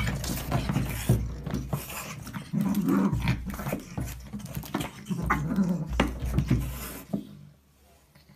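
A small dog and a cat fighting: growling and snarling with scuffling, stopping about seven seconds in.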